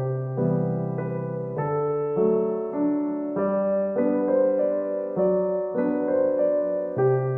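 Slow, gentle piano music, the chords changing about once a second over a low bass note.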